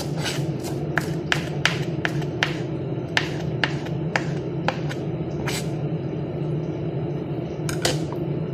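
Kitchen knife chopping fresh parsley on a cutting board: quick sharp knocks, about three a second, slowing and stopping after about five seconds, with two more near the end.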